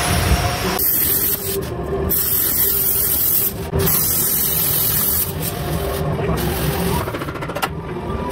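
Arc welding overhead under a truck: a steady crackling hiss in three runs with short breaks, from about a second in to about five seconds in.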